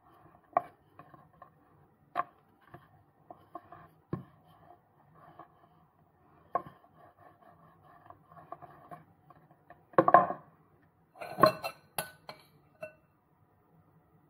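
Wooden rolling pin rolling dough out thin on a wooden board, with light knocks every second or two as the pin is lifted and set back down. About ten seconds in comes a louder clatter, then sharp glassy clinks.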